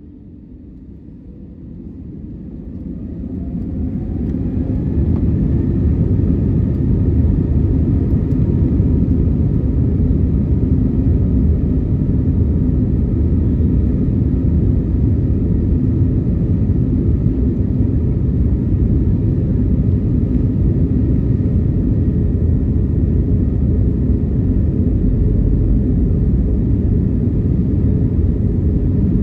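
Airbus A321neo's jet engines, heard from inside the cabin, spooling up over the first few seconds with a faint rising whine, then running steadily at takeoff thrust as a loud, even rumble, typical of the takeoff roll.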